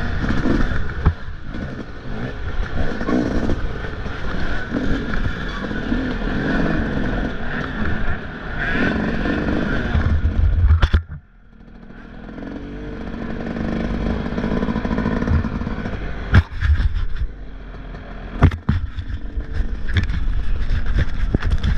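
Motocross bike engine running and revving, with a sudden cut in sound about halfway through that then builds back up as the engine rises again. A couple of sharp knocks come later on.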